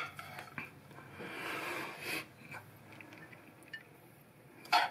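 Quiet spooning of turkey mince larb into lettuce-leaf cups: a few light clicks and soft scraping of a metal spoon, with a short breathy sniff near the end.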